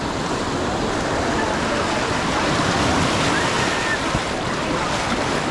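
Surf washing onto the beach in a steady rush, with faint voices of a crowd in the background.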